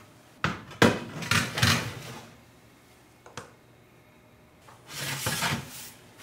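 Metal baking tray being handled in an oven: it scrapes onto the oven rack with a sharp knock about a second in, a short click follows past the middle, and a longer scrape near the end as the tray is drawn out.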